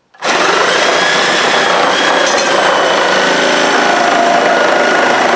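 Industrial corded Black & Decker reciprocating saw cutting through a pressure-treated 2x4 with a Diablo demolition blade. It starts abruptly just after the start and then runs steadily at full speed through the cut.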